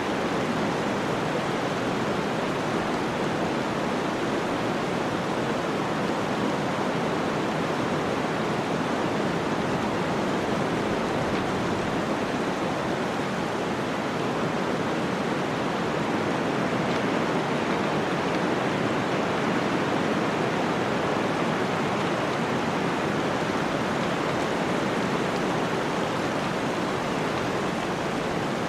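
Flowing water rushing steadily, an even noise with no breaks or changes.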